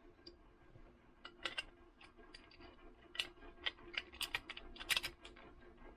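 Light, irregular clicks and ticks of an aluminum utility knife and a replacement blade being handled and fitted together, coming thicker after the first second or so, over a faint steady hum.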